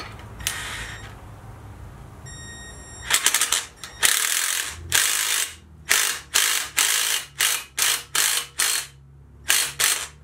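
Hand ratchet wrench clicking through about a dozen short strokes at an irregular pace while a valve spring is being compressed on a Hemi V8 cylinder head.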